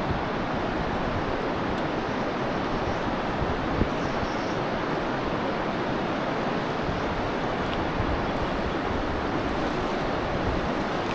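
Steady rush of river water flowing over stones, with light wind buffeting on the microphone.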